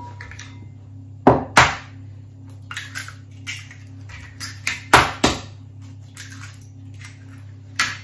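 Eggs being knocked against the rim of a stainless steel mixing bowl and cracked open: two pairs of sharp knocks, about a second in and about five seconds in, with another knock near the end. A steady low hum sits underneath.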